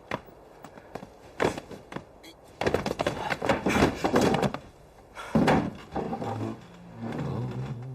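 Scattered knocks and thuds, then a long stretch of dense scuffling and rustling with a shorter burst after it. Low background music comes in near the end.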